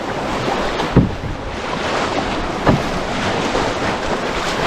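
Rushing whitewater of a river rapid around a canoe, with wind buffeting the microphone. Two dull thumps stand out, about a second in and again past the middle.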